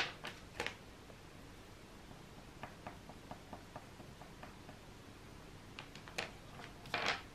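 Oil pastel sticks clicking and rattling against each other as one is set down in and picked from their box: three clicks at the start and a short clatter near the end. In between, faint quick ticks of a pastel stroking across paper.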